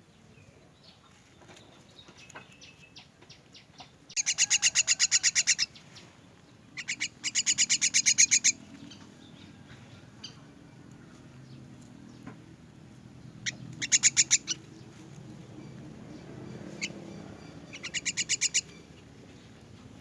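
Young myna chick calling in four bursts of rapid, harsh, repeated notes, each burst lasting about a second: typical begging calls of a chick being hand-fed.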